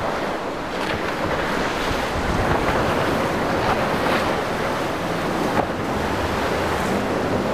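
Wind buffeting the microphone over breaking surf, with a speeding boat's twin outboard engines and hull spray mixed in underneath.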